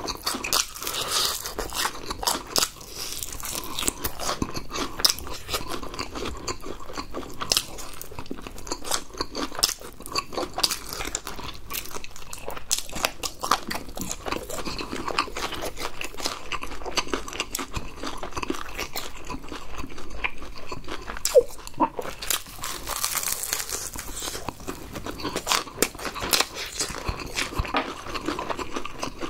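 Close-up crunching and chewing of crispy fried chicken (Mexicana Ppurigo chicken): a dense run of irregular sharp crackles as the coated crust is bitten and chewed.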